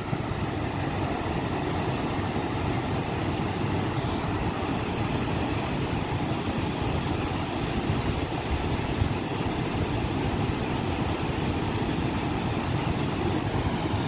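Steady rush of water pouring over river waterfalls and rapids.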